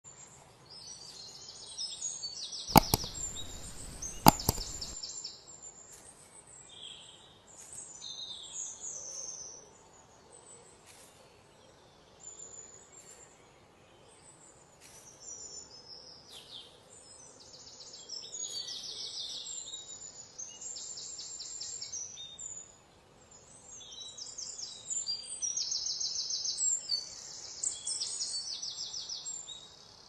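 Forest ambience of many high-pitched bird chirps and trills, coming in repeated bursts and busiest in the second half. About three seconds in, two sharp cracks sound a second and a half apart.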